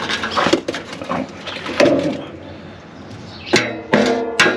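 Hand tools clinking and knocking on metal, then a short stretch of quieter hiss. Background music with a steady beat starts about three and a half seconds in.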